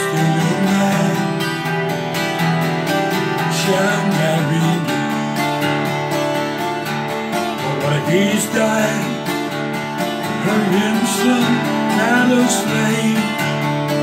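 Twelve-string acoustic guitar strummed to accompany a man singing a folk song.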